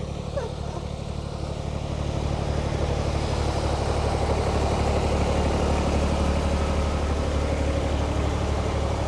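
Tractor engine idling steadily, a little louder from about two seconds in.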